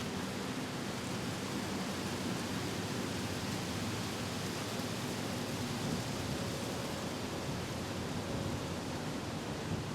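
Steady, even static hiss from the Whelen WPS-2910 siren's speakers with Live PA open and no voice message coming through.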